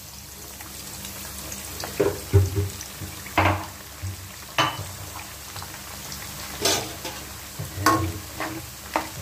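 Sliced garlic frying in hot oil, a steady sizzle. From about two seconds in, a spatula knocks and scrapes against the pan again and again as the garlic is stirred.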